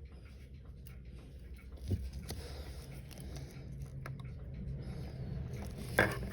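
Small clicks and taps of tweezers and tools handling parts of a Citizen Leopard Diver watch movement during disassembly, with a sharper knock about two seconds in and a louder click near the end, over a steady low hum.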